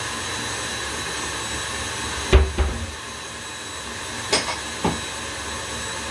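Stand mixer running steadily, whisking a cake batter over a long mixing time. Three sharp knocks of kitchen things being handled sound over it, the loudest about two seconds in and two lighter ones a couple of seconds later.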